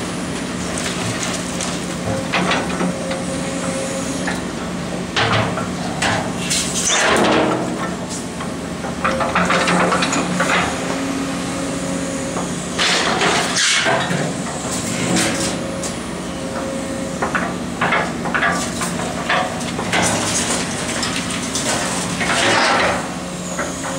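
Hydraulic excavator's diesel engine running steadily while its bucket crashes through metal sheeting and demolition rubble, with repeated metallic clanks and clattering crashes throughout.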